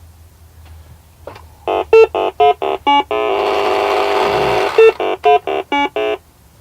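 Electronic beeps from a Milton Bradley Big Trak toy's keypad and sound circuit: a quick run of short beeps, a buzzy electronic tone held for about a second and a half, then another run of short beeps.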